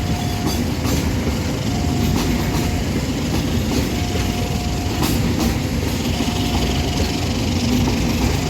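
Train passing over a level crossing, a steady rumble with regular clicks of wheels over the rail joints. Over it, the crossing's warning signal sounds a thin tone about a second long, repeating roughly every two seconds.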